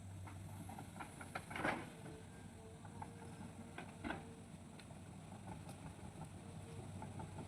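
Hitachi hydraulic excavator's diesel engine running steadily, with scattered knocks and clanks as it works; the two loudest knocks come about one and a half seconds and four seconds in, and a faint whine is heard through the middle.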